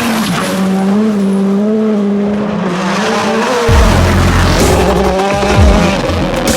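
Race car engine sound, revving with a wavering pitch. From about halfway a heavy low rumble comes in with downward sweeps, and there is tyre squeal.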